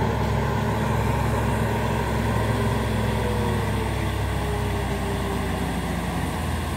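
Heavy truck engine running with a steady low rumble, with a faint whine that slides slightly down in pitch midway.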